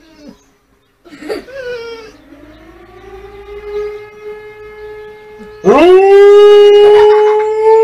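Dog howling: a short whine about a second in, then a loud, long howl that swoops up and holds one steady note.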